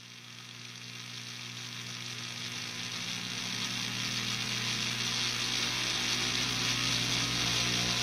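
A steady drone with an even hiss over it, fading in and growing louder throughout.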